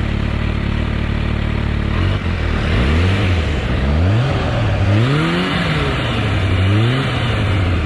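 Kawasaki Ninja H2's supercharged inline-four running steadily under way, then after about two seconds its revs rising and falling several times as the throttle is rolled on and off.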